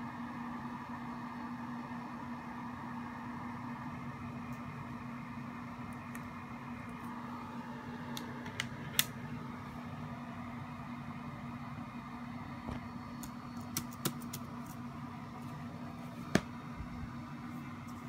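Steady room hum with a few sharp clicks and taps from handling a late-2013 MacBook Pro, pressing its keys and closing its lid. The loudest clicks come about nine seconds in and about sixteen seconds in. The MacBook, which won't power on, gives no startup chime.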